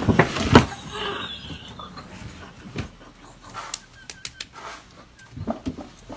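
A person falling onto a black plastic crate: two knocks as she lands in the first second, then scattered faint clicks and scuffles as she lies sprawled on it.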